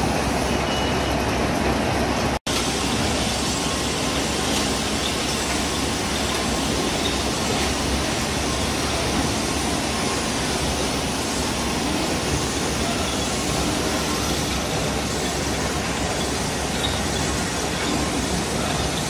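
Steady mechanical noise of a carton packaging line running in a factory hall, an even rumble and hiss, cutting out for an instant about two seconds in.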